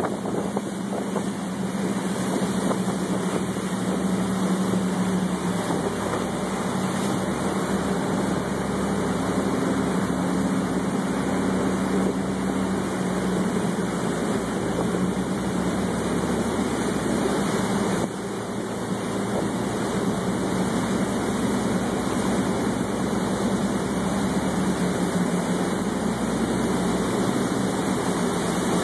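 Pilot boat's engines running steadily with a low hum, over a continuous wash of water rushing along the hull.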